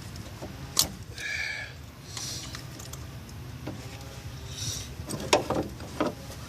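Hand tools and metal parts clicking, clinking and scraping during work on the car's alternator and its wiring, with a brief rattling scrape just after a second in and a quick run of clicks about five to six seconds in.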